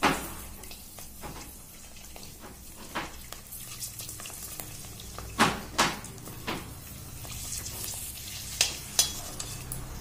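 Pani puri shells frying in hot oil in an aluminium wok, a steady light sizzle. Several sharp metallic clinks from a slotted spoon against the pan come at the start, in a cluster about halfway, and again near the end.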